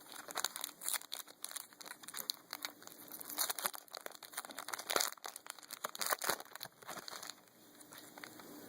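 Plastic-foil trading card pack wrapper crinkling and rustling as it is handled and opened, in quick irregular crackles that die down about seven seconds in.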